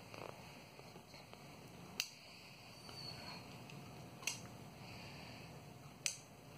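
Faint room tone broken by three short, sharp clicks about two seconds apart.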